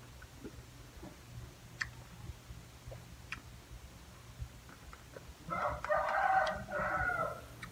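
A rooster crowing once, about two seconds long, near the end.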